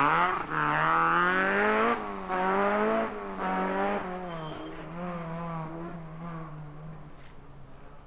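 Rally car engine revving hard through the gears, its pitch climbing and dropping back at each of about three upshifts in the first four seconds. The sound then holds steadier and fades away as the car moves off into the distance.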